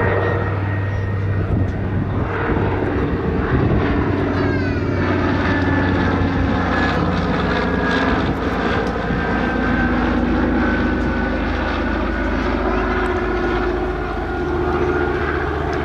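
Twin Pratt & Whitney R-1830-92 fourteen-cylinder radial engines and propellers of a Consolidated PBY-5A Catalina in flight, a steady drone whose pitch falls slightly as the aircraft passes and turns away.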